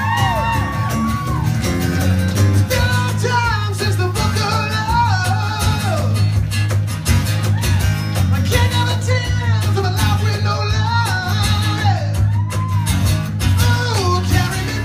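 Live rock band: a male lead singer over two strummed acoustic guitars and an electric bass, with a heavy, steady bass line under the vocal melody.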